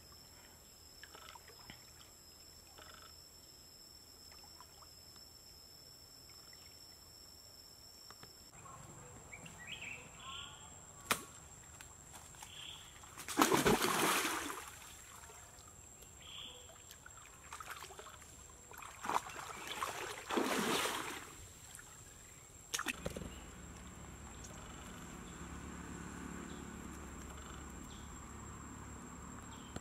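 A single sharp snap of a slingshot shooting an arrow, followed by two loud bursts of splashing as a man lunges through shallow stream water. A steady high-pitched insect whine sits underneath.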